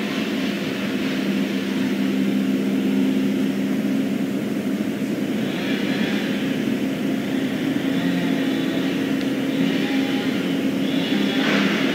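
A steady engine-like drone holding a low, even pitch, with a hiss above it that swells twice.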